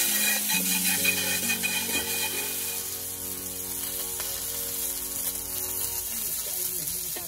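Small whole fish frying in hot oil in a wok over a charcoal fire: a steady sizzle, strongest just as the fish go in and easing after a few seconds. Background music with held notes plays under it.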